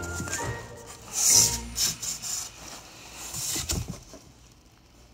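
Plastic air-pillow packing crinkling and cardboard scraping inside a shipping box as a dog shifts around in it, in several uneven bursts, the loudest about a second in.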